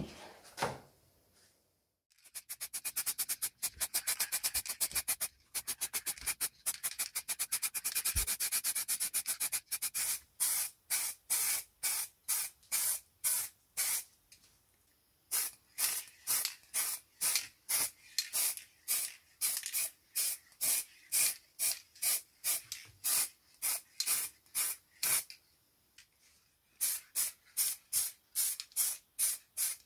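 Rhythmic rubbing strokes on a surface, hissy and even. After a brief pause they go fast, about five a second, then slow to about two a second, with a couple of short breaks.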